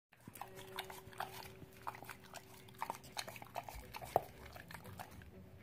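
Dog nosing, licking and pawing at a concrete floor: a run of irregular short clicks and snuffles, the sharpest about four seconds in, over a faint steady hum that stops partway through.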